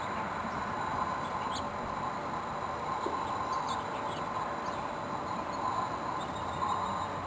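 Steady hum of many bees foraging on a flowering winterberry holly bush.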